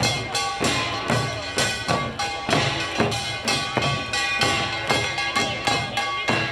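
Korean pungmul drumming: janggu hourglass drums and buk barrel drums struck in a fast, even rhythm, with sustained ringing tones held above the beats.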